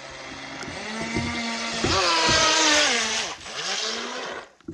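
Radio-controlled model boat running past close to the water-level camera. Its motor builds to a loud pass with a hiss of spray, then drops in pitch and fades away.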